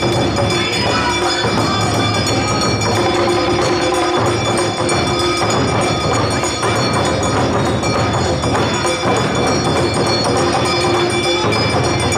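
Live Awa odori parade music: drums beating a steady rhythm under sustained metallic ringing like the kane hand gong.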